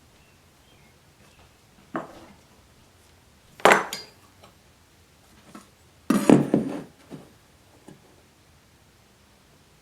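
Scattered knocks and clinks of hard objects being handled: a single knock about two seconds in, a louder one near four seconds, and a short clatter around six seconds in, trailing off in a couple of small taps.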